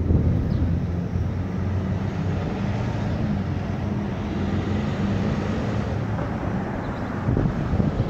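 Wind rumbling on the microphone over a steady low hum.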